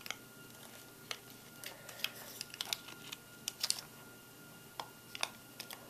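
AA batteries being pushed into a weather radio's plastic battery compartment: a dozen or so light, irregular clicks and taps as the battery casings knock against the contacts and the plastic.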